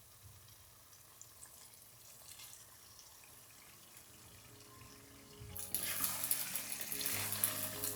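A kitchen tap turned on about five and a half seconds in, water running steadily into the sink, over soft background music.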